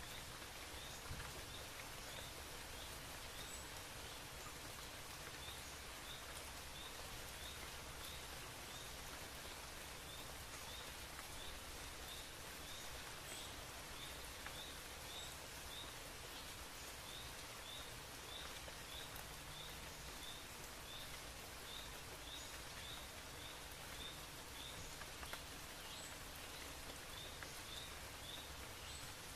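Steady, even hiss of outdoor ambience with faint short high chirps repeating in runs.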